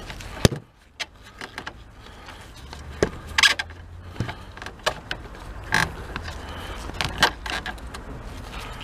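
Hands working at the back of a Mercedes W202 headlight housing around the bulb's wiring connector: scattered plastic clicks, knocks and rattles, with a sharp click about half a second in.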